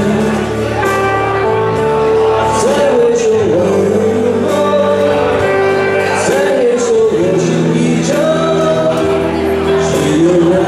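Live band music: a sung melody over keyboard and band accompaniment, without a break.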